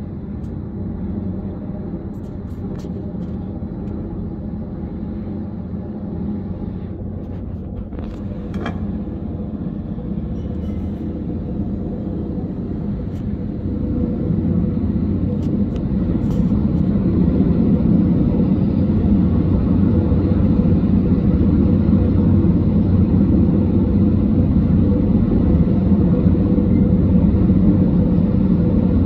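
Helicopter hovering with a load slung on a long line: a steady drone of rotor and engine that grows louder from about halfway through as the helicopter comes down toward the roof.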